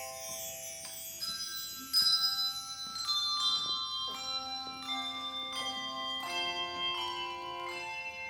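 Handbell choir ringing a tune: struck handbells sounding overlapping notes that ring on, with a louder stroke about two seconds in.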